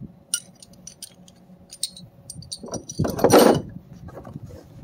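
Small metal hand tools and drill bits clinking and rattling as they are handled and tucked into the pockets of a fabric tool bag, with a louder rustle and scrape about three seconds in.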